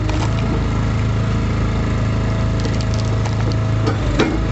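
Easton Made hydraulic log splitter splitting a log, wood cracking and splintering several times over the steady hum of the splitter's gas engine.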